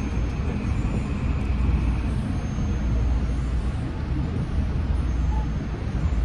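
Passenger train running, heard from inside the carriage: a steady low rumble, with a faint high whine that stops about two seconds in.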